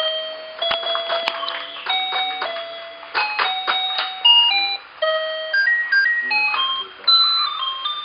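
Children's toy electronic keyboard playing a simple melody in plain beeping tones, one note at a time stepping up and down, with short percussive clicks and hits mixed in.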